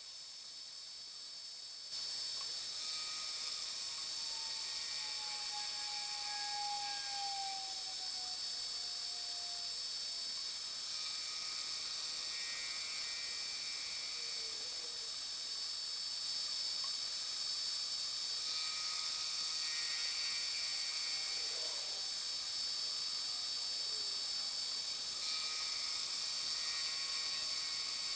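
Harbor Freight mini-mill starting up about two seconds in and running with a steady high whine, as its involute gear cutter cuts teeth into a brass rod. The cutting sound comes and goes in passes roughly every eight seconds.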